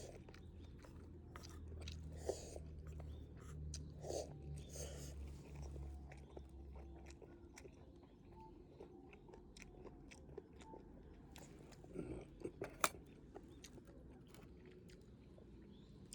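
Faint sounds of a person eating: chewing and crunching, with scattered small clicks and a few sharper clicks about twelve to thirteen seconds in.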